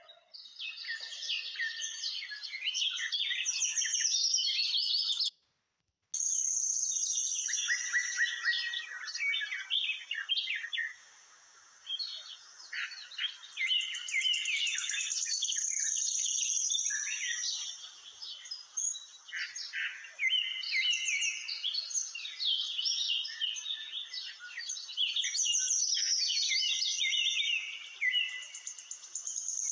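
Many small birds chirping and twittering in a dense, continuous chorus of quick high notes, broken by a brief drop to silence about five seconds in.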